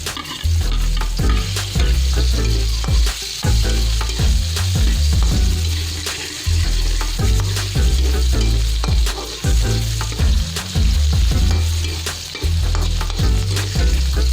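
Onion sautéing in hot oil left from frying fish: a steady sizzle with a spatula stirring and scraping the pan, over a heavy low rumble.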